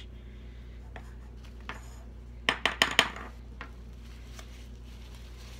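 A quick run of about four sharp plastic clicks and knocks about two and a half seconds in, from a small baby powder container being handled and set down.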